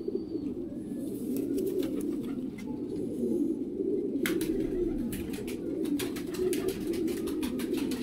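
Many domestic pigeons cooing together in a loft, a steady overlapping chorus of low coos, with sharp clicks over it from about four seconds in.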